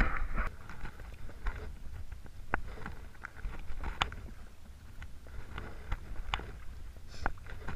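Sea kayak paddle strokes: the blade dipping into and pulling through calm water, with soft splashes and sharp drips falling from the blade, over a steady low rumble. The loudest splash comes at the very start.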